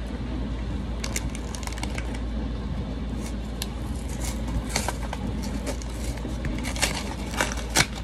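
Dishwasher running with a steady low hum, under scattered light clicks and scrapes of kitchen items being handled, the loudest clicks near the end.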